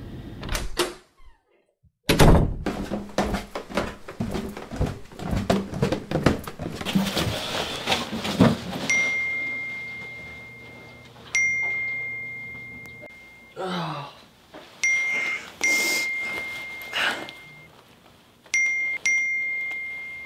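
A run of knocks and thuds, then a series of electronic beeps all on one high pitch. Some beeps are held about two seconds and others are short and quick, with a low hum under the first ones.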